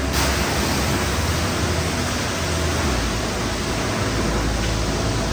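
High-pressure water spray hitting a truck's body at a truck wash, a steady loud hiss.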